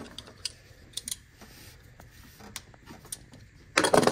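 Handling noise: scattered light clicks and rattles, with a louder scuffing burst near the end.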